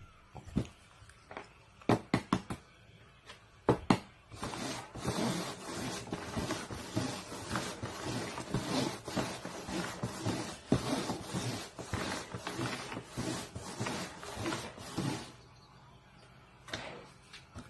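Paper cups knocked down and then slid around on a cardboard box top: a few sharp taps in the first four seconds, then about eleven seconds of continuous scraping and shuffling that stops, with a couple of light taps near the end.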